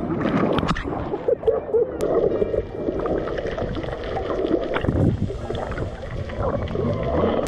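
A child jumping into the sea with a splash, then the camera goes under the surface and the sound turns muffled, with gurgling and bubbling of seawater around the microphone.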